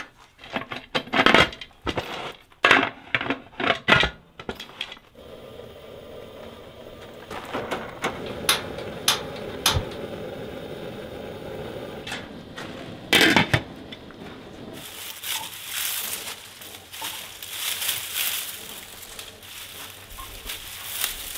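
Metal pots and canner lids clanking and scraping, then the steady rush of a gas burner flame under a pot. In the last few seconds, dry papery garlic stalks rustle and crackle as they are handled.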